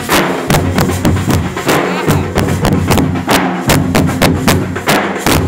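A group of Nashik dhols, large barrel drums beaten with sticks, playing together in a fast, loud, driving rhythm of sharp strokes over deep booming tones.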